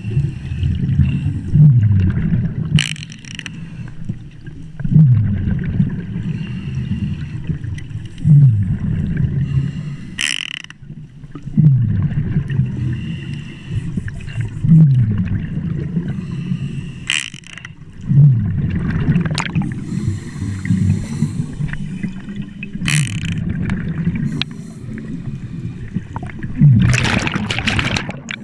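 Scuba diver breathing through a regulator underwater: exhaled bubbles rumble past in bursts about every three seconds, each falling in pitch, with short sharp hisses of inhalation through the regulator a handful of times.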